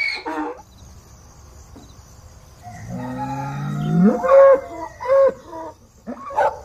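A black bull mooing: one low call that rises in pitch about three seconds in, then two shorter calls. In the first half second, the end of a donkey's bray.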